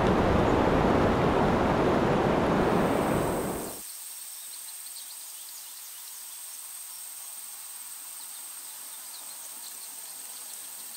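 Loud steady rushing outdoor noise that cuts off suddenly about four seconds in. It gives way to a quiet outdoor background with a thin, steady high-pitched whine and scattered faint chirps.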